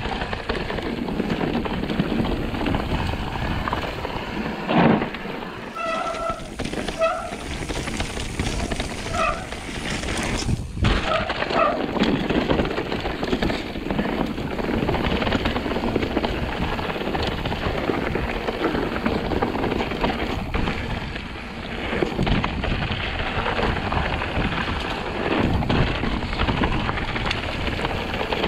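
Mountain bike rolling fast down a loose, rocky dirt trail: a steady rumble of tyres over dirt and rocks, with the bike rattling and knocking over bumps. A few brief squeaks come in the first half.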